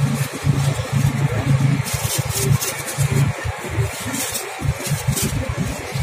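Wind buffeting the microphone: a gusty, choppy low rumble with a few sharper, hissy gusts.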